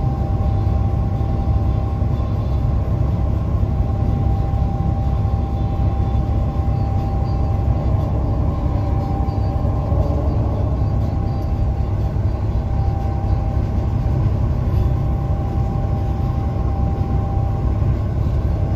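Steady low road and engine rumble inside a truck's cab at highway speed, with a thin steady tone running through it.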